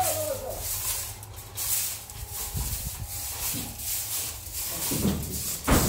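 Irregular scraping and rubbing, with a sharp knock near the end.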